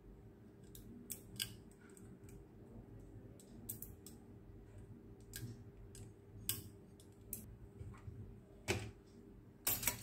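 Scattered light clicks and taps of metal tweezers and a small wooden stick against a phone circuit board and its metal PCB holder, irregular, with a sharper tap near the end, over a faint steady hum.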